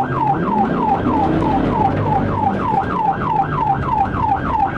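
Police siren in yelp mode: a fast repeating sweep that falls in pitch and jumps back up, about three times a second. It sounds over the patrol car's engine and road noise.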